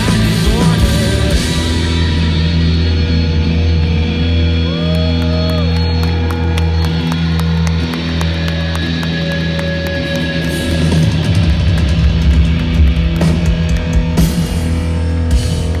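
Loud rock music with electric guitars and drums, held low chords with drum hits scattered through.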